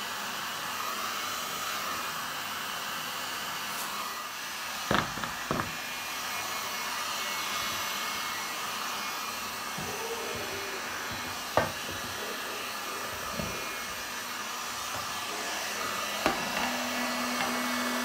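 Electric heat gun blowing a steady hiss of hot air onto an acrylic sheet to soften it for bending. A few knocks come about five, eleven and sixteen seconds in, and a low steady hum joins near the end.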